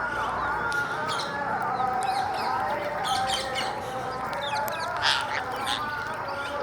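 A flock of parrots chattering: many overlapping warbling calls with sharp chirps and squawks mixed in, and one louder call about five seconds in.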